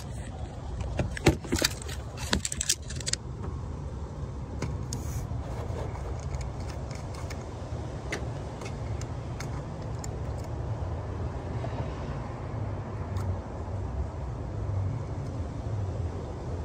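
Handling noise on a phone microphone: a quick run of clicks and knocks in the first few seconds, then a steady low rumble of rubbing and wind against the mic.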